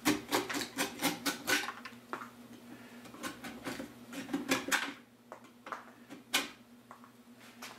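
A sharp knife shaving dried glue squeeze-out from the joints of a wooden hive box. A quick run of short scraping cuts comes first, followed by a few single cuts, the last sharp one about six seconds in.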